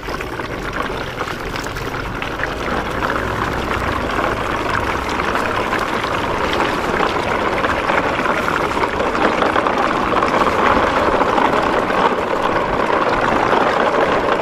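Plastic toy truck and its long train of trailers rolling over wet, rough concrete: a steady gritty rattle from the many small plastic wheels, growing slightly louder as it goes.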